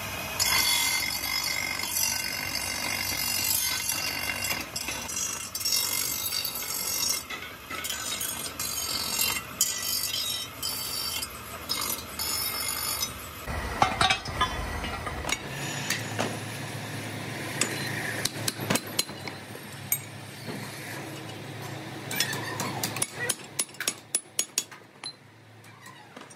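A cast metal pump part is pressed against a motor-driven polishing wheel, giving a loud grinding hiss in spells broken by short pauses. About halfway the hiss stops, and cast metal pump bodies clatter onto a pile. After that come scattered sharp metal clinks and taps as parts are handled and fitted, with a quick run of them near the end.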